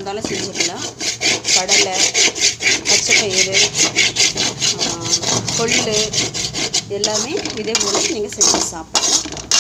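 A metal spoon scraping round a metal pan as cooked beans are stirred fast, about four strokes a second.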